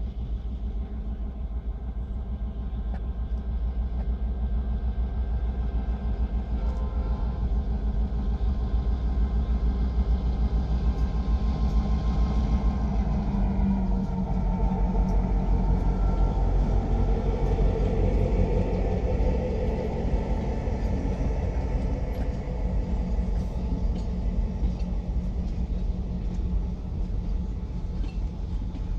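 Pair of F-unit diesel locomotives approaching and passing at track side, their engines droning loudest in the middle, with the pitch dropping as they go by. Then the passenger coaches roll past with a lower rumble.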